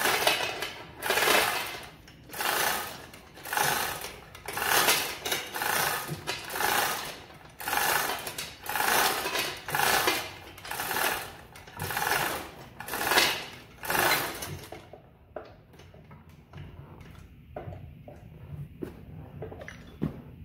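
Rasping strokes of a hand tool worked back and forth on metal, a little more than one stroke a second, in a steady rhythm that stops about fifteen seconds in. Light clicks and knocks follow.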